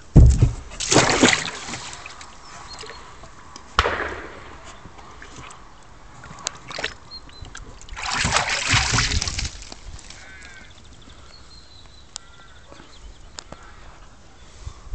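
A Nova Scotia duck tolling retriever splashing in a plastic tub of water. A heavy thud and splash comes just after the start as it goes in, another splash follows about four seconds in, and a longer bout of sloshing comes around eight to nine seconds in.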